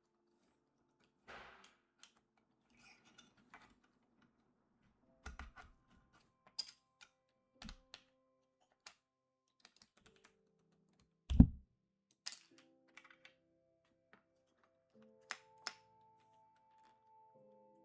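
Scattered plastic clicks and taps of PBT keycaps being handled and pressed onto a keyboard's switches, with one louder thump a little past halfway. Soft background music with held notes plays underneath.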